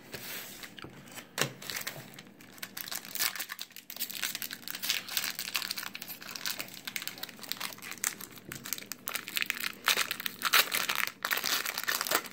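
The foil wrapper of a Yu-Gi-Oh! Gold Series booster pack being torn open and crinkled by hand, a continuous crackling with a few sharper, louder crinkles.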